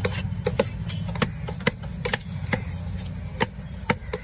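Heavy fish-cutting knife chopping diamond trevally into pieces on a wooden log block: sharp thwacks roughly every half second, a little uneven. A steady low rumble runs underneath.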